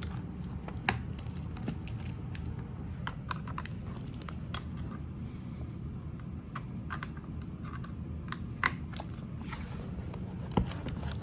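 Scattered light clicks and knocks of tool parts and hardware being handled and fitted during assembly, over a steady low background hum.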